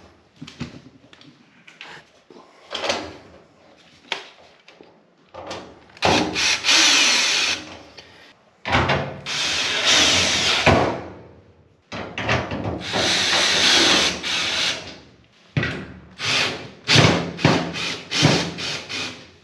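Cordless drill/driver running screws into a clothes dryer's sheet-metal electrical panel: three long runs of the motor in the middle, then several short bursts near the end. Clicks and knocks of the panel and screws being handled come between the runs.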